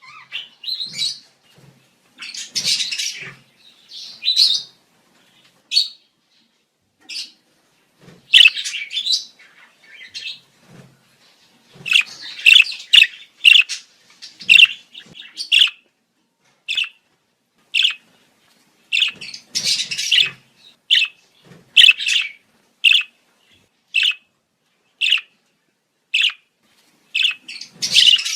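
Budgerigars chirping and chattering: bursts of rapid warbling alternate with sharp single chirps repeated about once a second.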